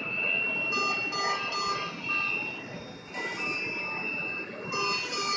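Hospital medical-equipment alarm beeping in groups of short, high, even-pitched beeps, over a steady high tone.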